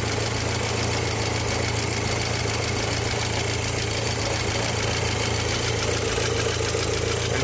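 Volkswagen MK5 Golf GTI's 2.0-litre turbocharged four-cylinder engine idling steadily, warmed up to operating temperature.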